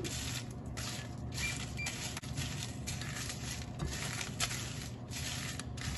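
Dry red chillies and dals frying in a little oil in a nonstick frying pan, sizzling, while a wooden spatula stirs and scrapes them with irregular light ticks and rustles.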